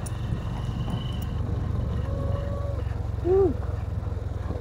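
Small motorcycle engine running slowly, a steady low hum with rapid firing pulses. About three seconds in, a short, loud call that rises and then falls in pitch sounds over it, a voice or an animal, after a fainter steady tone a second earlier.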